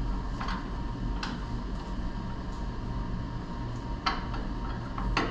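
A few light metallic clinks of hand tools and bolt hardware, about four scattered across a few seconds, over a steady low shop hum.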